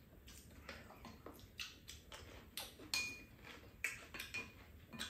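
Light, scattered clinks and taps of spoons and chopsticks against bowls and a pan during a meal, a few of them with a brief ring.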